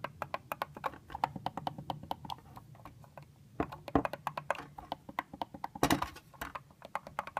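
KONE KSL500 elevator pushbuttons being pressed over and over, a rapid run of sharp clicks, several a second, with a few louder knocks in the middle and near the end. The buttons are unpowered and don't light.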